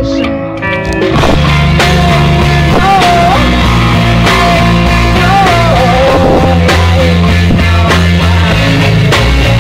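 Loud rock music with a heavy bass line, drums and a wavering lead melody, after a short dip in level in the first second.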